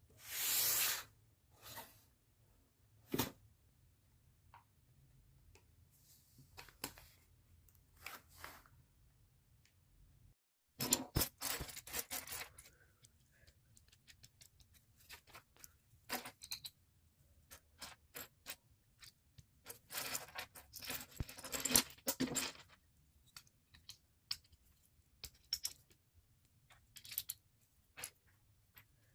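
Unboxing a Lego set: the cardboard box and plastic bags of pieces rustling and tearing, with small plastic Lego pieces clicking and rattling in irregular bursts.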